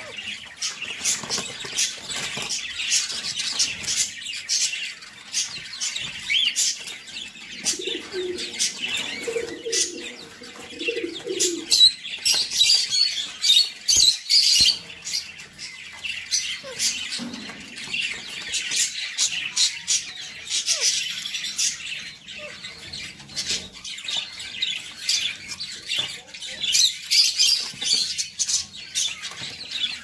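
Alexandrine parakeet biting and chewing cucumber with its beak: a quick, irregular run of crisp crunching clicks, with other birds chirping at times.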